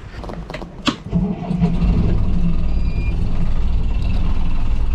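A sailboat's engine being started: a few knocks, then the engine catches about a second in and settles into a steady run.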